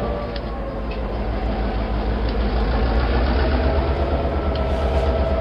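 N scale model train running along the layout's track: a steady low hum with a faint motor whine that rises slightly near the end, and a few light clicks.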